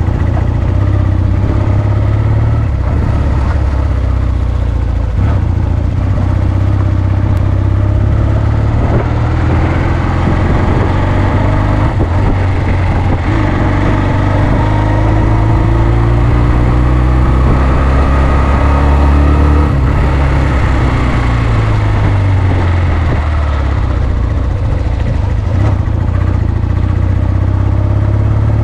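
1996 Honda CD125T Benly's small parallel-twin four-stroke engine running while being ridden, its pitch rising and falling repeatedly as the throttle is opened and closed.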